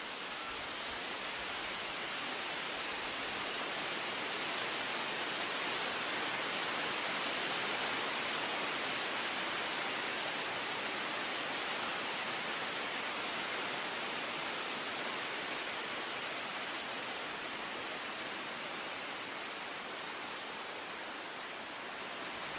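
Steady rush of running water, an even hiss that swells a little toward the middle and eases near the end.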